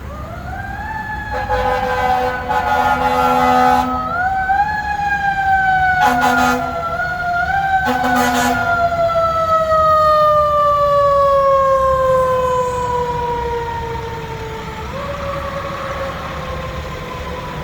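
Federal Q2B mechanical siren on a 1982 Hahn fire truck, wound up and then left to coast down in a long slow falling wail, wound up again three times. Three horn blasts sound over it in the first half.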